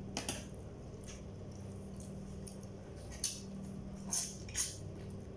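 Eating sounds: a few short smacks and clicks from chewing and handling food, heard over a steady low hum.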